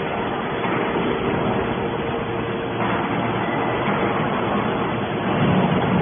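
A 250-ton hydraulic scrap metal baler running: a steady mechanical drone with a faint constant hum.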